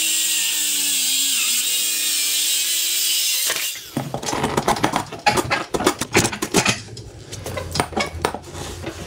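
Ryobi circular saw running through a pine panel, cutting off about three and a half seconds in. Then a router plane cutting a dado across the pine, a run of short, irregular scraping strokes and clicks.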